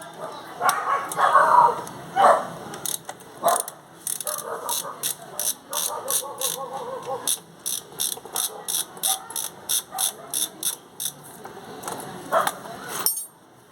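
Ratchet wrench with a 17 mm socket clicking in an even run of about three clicks a second as motorcycle engine bolts are loosened, after a few irregular metal knocks at the start.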